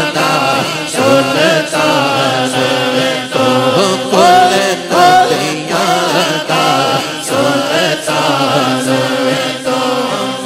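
Unaccompanied Urdu naat chanted by a male reciter through a loudspeaker system, in long melodic phrases, with the crowd joining in the refrain.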